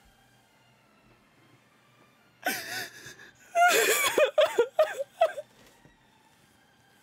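A person crying: a gasping, breathy sob about two and a half seconds in, then a run of short, wavering sobbing cries that stop about five and a half seconds in.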